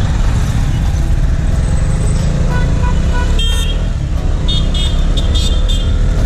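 Motorcycle riding through city traffic, heard from the rider's seat: a steady, loud engine and road rumble. Other vehicles' horns give several short toots around the middle and in the second half.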